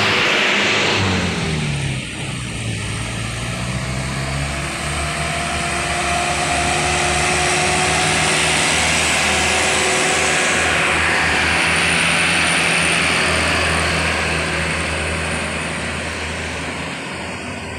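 Diesel trucks loaded with sugarcane passing at full throttle. The engine tones fall in pitch as one truck pulls away about a second in. Then another truck's diesel works past at steady revs, loudest midway and fading near the end.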